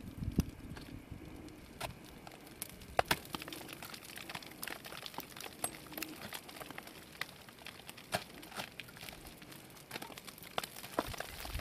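Crampons and ice axes biting and scraping into rime ice as a climber moves up an ice chimney: irregular sharp ticks and crunches over a low hiss, with a low rumble building near the end.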